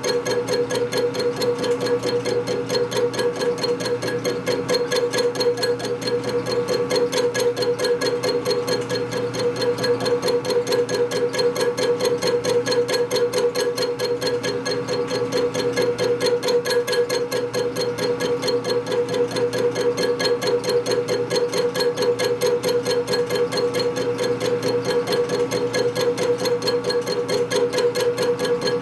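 Metal-cutting machine tool running a steady cut on a motorcycle brake caliper bracket: an even hum with a rapid, regular ticking pulse several times a second, like an interrupted cut.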